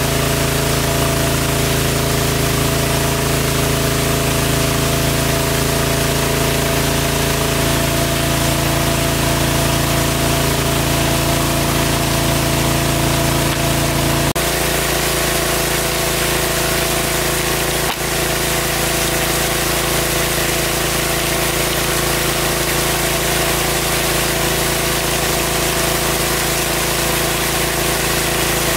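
An engine-driven water pump running steadily. Its note changes abruptly about halfway through.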